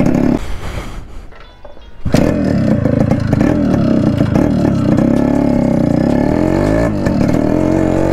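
Yamaha RX100's air-cooled two-stroke single-cylinder engine running as the bike is ridden, its note rising and falling with the throttle. About half a second in it drops away much quieter, then comes back suddenly about two seconds in.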